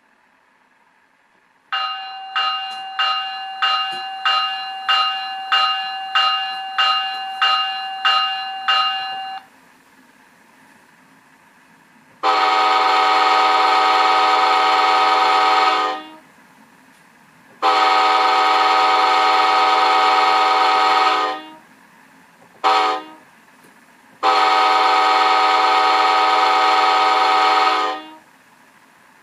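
Recorded locomotive bell and Nathan K5LA horn played by a Soundtraxx Tsunami sound decoder in an HO scale Bombardier cab car. The bell rings about a dozen evenly spaced strikes, then the horn sounds two long blasts, one short and one long: the grade crossing signal.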